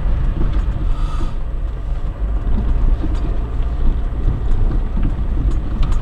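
A car driving along a rutted, snow-covered forest dirt track, heard from inside the cabin: a steady low rumble of engine and tyres.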